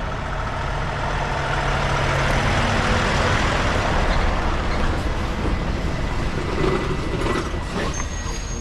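Truck engine running with a steady, loud drone.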